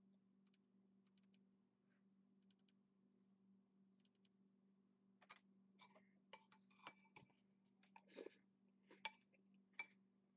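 A metal spoon clinking and scraping against a bowl, a string of sharp ringing clinks from about five seconds in. Before that, a few faint clicks like a computer mouse, over a steady low hum.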